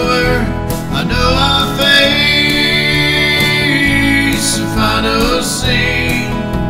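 Country song with acoustic guitar and band backing, between sung lines of the chorus.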